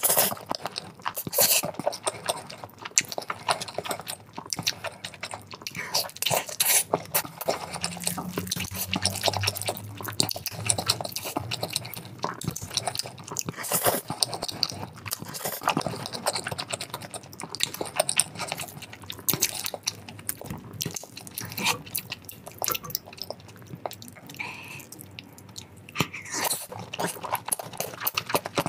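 Close-miked eating of sauced instant noodles with chopsticks: wet slurps of noodle strands and moist chewing and lip smacks, in quick irregular succession.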